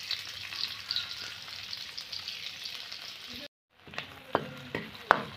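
Sliced onions, bay leaves and cumin sizzling in hot mustard oil in a karahi. About three and a half seconds in, the sizzle drops out briefly, then the onions are stirred with a spatula, with a few sharp knocks against the pan.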